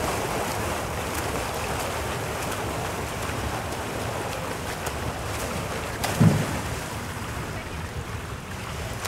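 Backstroke swimmers splashing through the water: a steady wash of churning pool water, with wind buffeting the microphone. A brief low thump about six seconds in.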